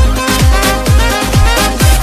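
Electronic dance music with a steady, deep kick drum, a little over two beats a second, under layered synth tones.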